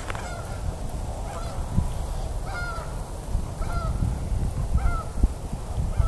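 A flock of geese flying overhead, honking about once a second, over a low rumble.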